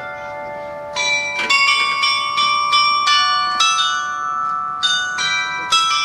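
Tower bells ringing: distinct strikes come about twice a second, each note ringing on under the next. In the first second there are no new strikes while the earlier notes die away.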